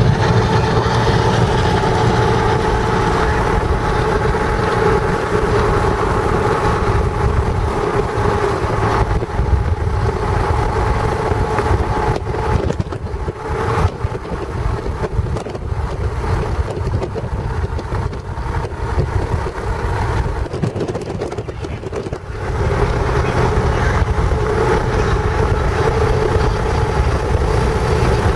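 A car driving, with steady engine and road noise and a constant hum. The noise drops for a stretch in the middle, as if the car slows, then rises again.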